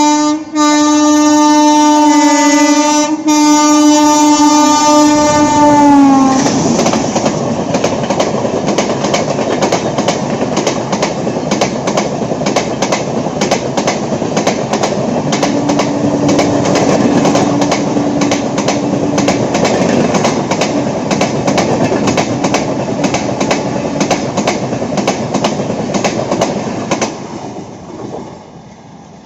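WAP-7 electric locomotive's multi-tone horn sounding continuously as it approaches, its pitch dropping as the locomotive passes about six seconds in. The coaches follow at speed with a rapid, even clatter of wheels over rail joints, which fades away near the end.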